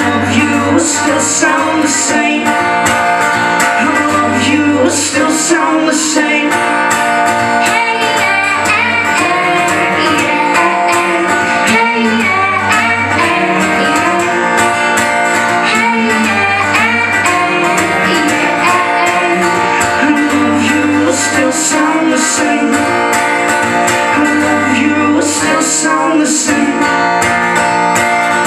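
Live pop-folk song: strummed acoustic guitar over a steady bass, with singing.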